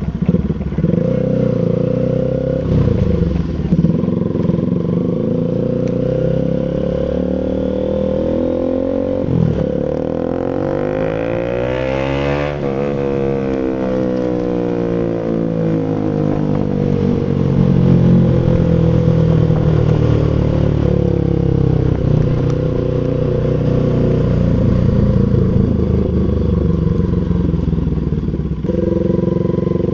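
Bajaj Rouser RS200's single-cylinder engine running steadily through an aftermarket SC Project full exhaust, with a brief swell of sweeping tones about twelve seconds in.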